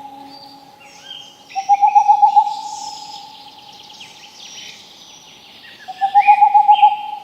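Several forest birds calling. A low, quavering call of about a second, the loudest sound, comes twice about four seconds apart. Between and over it run higher chirps, trills and rising whistles from smaller birds.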